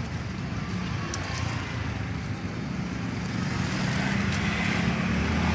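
Motor vehicle engine and tyre noise from road traffic on the adjacent street, a steady hum that grows louder over the last couple of seconds as the vehicle comes closer.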